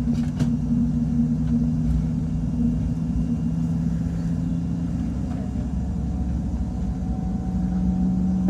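Steady low drone of an Airbus A220-300's cabin, heard during pushback and engine start-up. A few low tones run under it, and their pitch shifts about five seconds in.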